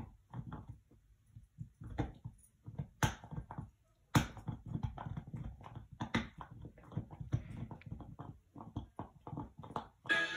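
A dog's mouth noises close by: an irregular run of short wet smacks and clicks, with a brief pause about a third of the way through.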